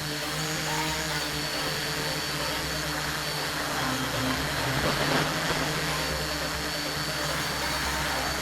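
Motors and propellers of a TBS Discovery mini FPV quadcopter buzzing in flight, the pitch shifting up and down with throttle over a rush of wind noise. The sound swells briefly about five seconds in.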